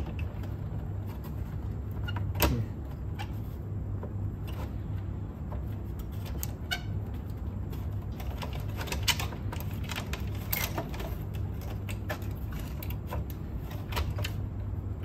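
Scattered small clicks and taps of hands handling wiring and parts inside a cassette deck, the sharpest about two and a half seconds in, over a steady low hum.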